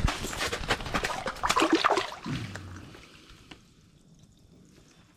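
Water splashing and sloshing in an ice-fishing hole as a lake trout is let go, lasting about two and a half seconds and then dying away.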